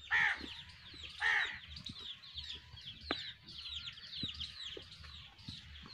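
Farmyard birds chirping steadily in quick short notes, with two louder falling calls about a second apart near the start.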